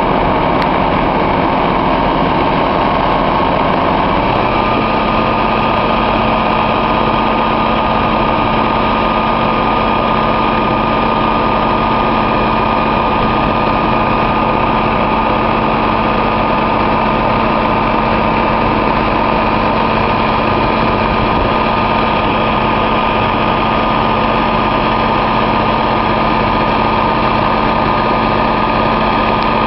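The fire tender's engine-driven pump runs steadily, feeding the roof-mounted water monitor, with the rushing hiss of the high-pressure water jet. The engine's pitch steps up slightly about four seconds in.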